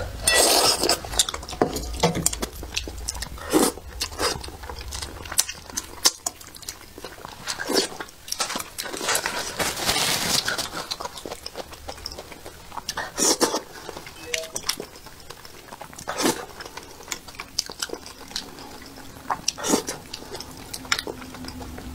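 Close-miked eating of braised fish: wet chewing, sucking and lip smacks as meat is eaten off the bones, with short sharp clicks of chopsticks against the fish and dish. About ten seconds in, a hissing rub as a tissue is wiped across the mouth.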